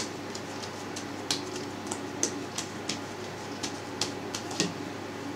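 Hands pressing and stretching yeast dough flat on a cutting board: irregular soft pats and taps, about two a second, over a low steady hiss.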